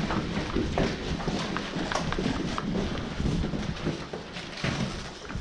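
Boots on hard concrete floors and stairs: quick, irregular footsteps with scattered sharp knocks as players move through the building.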